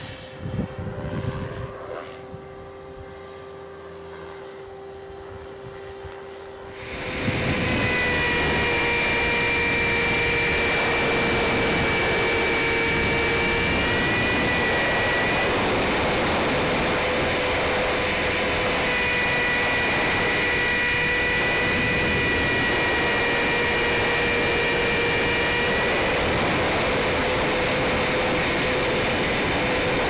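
CopterX 500 electric RC helicopter flying. For the first seconds its steady whine is distant, with wind buffeting the microphone. About seven seconds in the sound jumps to a loud, close, steady whine of motor, gears and rotor recorded on board, shifting slightly in pitch a few times.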